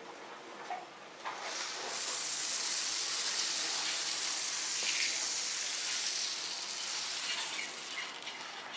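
Aerosol can of shaving foam spraying in one long steady hiss for about six seconds, then fading.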